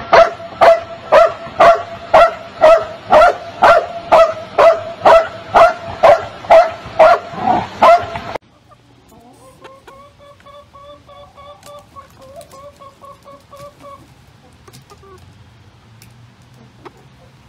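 A dog barking over and over, loud and even, about two barks a second, stopping abruptly about eight seconds in. Then hens clucking softly in quick repeated calls.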